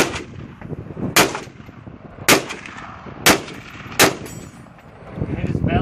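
Rifle fired five times in quick succession, each shot about a second apart and the last one a little sooner, every report trailing a short echo.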